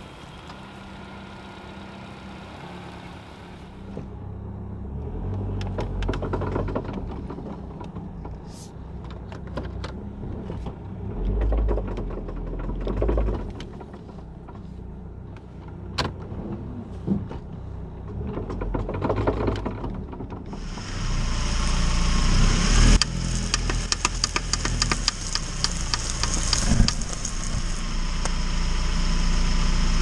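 Hyundai sedan driving with worn outer CV joints on both front axles, making a repetitive pop, pop, pop clicking as the joints rotate. The sound is heard from outside the car, then inside the cabin, and from about twenty seconds in from beneath the car at the front wheel, where it is louder with added road and tyre noise.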